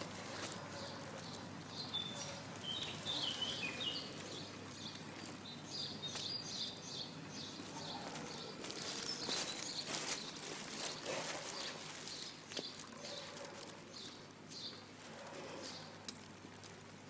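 Small birds chirping on and off, over scattered clicks and rustling and a steady low hum.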